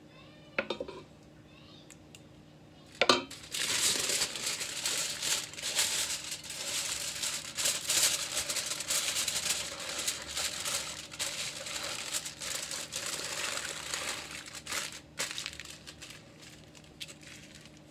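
Aluminium foil crinkling and crackling as it is folded and pressed around a tamal, with two sharp knocks in the first three seconds before the crinkling starts and fades near the end.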